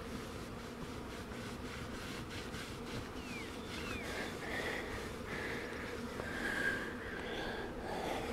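Honey bees from a newly installed package colony buzzing around the hive, a steady drone. Short high chirps and whistles come in about halfway through.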